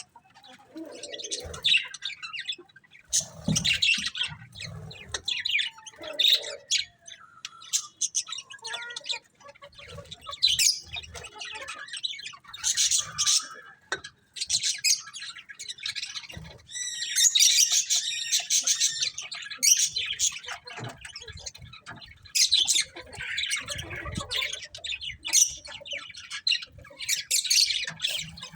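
Budgerigars chirping and chattering in quick, irregular high calls, with a denser stretch of chatter about two-thirds of the way through.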